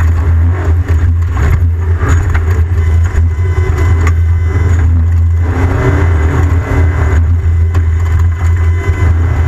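Off-road race vehicle running with a loud, steady low rumble and irregular rattles over it.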